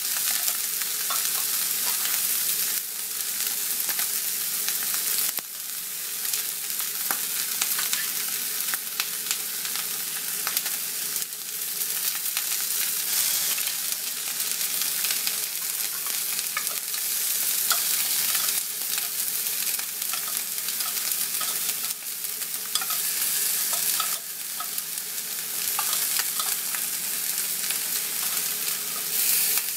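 Canned tuna sizzling in hot canola oil in a cast iron skillet at searing heat: a dense crackling hiss dotted with small pops, swelling and dipping in loudness every few seconds.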